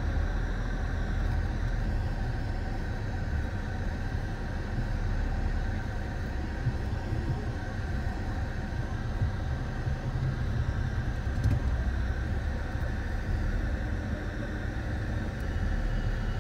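Road traffic of tractors and cars running steadily along a highway, a continuous low engine rumble.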